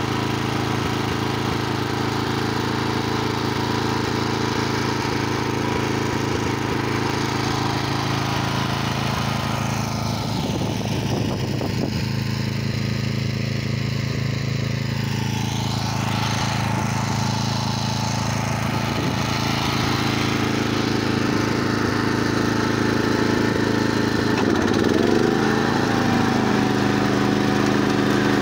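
Honda GX340 single-cylinder four-stroke petrol engine of a Bertolini 413S two-wheel tractor running steadily, driving a hammer flail mower attachment through dry grass. The engine note changes about 25 seconds in.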